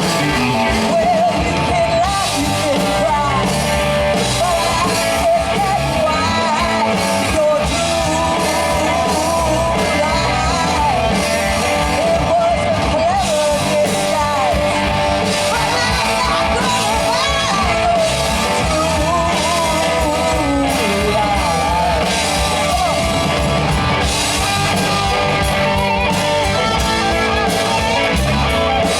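Rock band playing, with electric guitar under a sung lead vocal.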